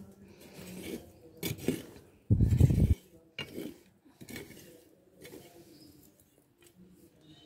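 Long metal tongs scraping and knocking in the ash bed and against the clay stove as ashes are raked out: a string of metal scrapes and clinks, the loudest a heavy low scrape about a third of the way in, lighter strokes after it.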